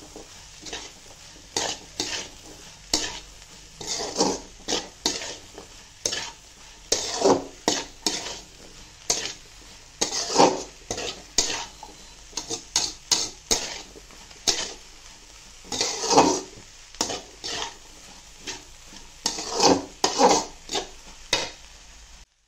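Metal spatula scraping and tossing vegetables in a large hammered metal kadai, in irregular strokes about one or two a second, over a faint sizzle of frying. The sound stops abruptly near the end.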